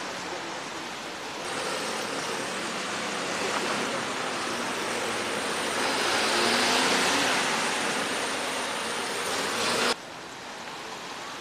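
Road traffic noise: a steady rush that swells toward the middle and cuts off suddenly near the end, leaving a quieter hiss.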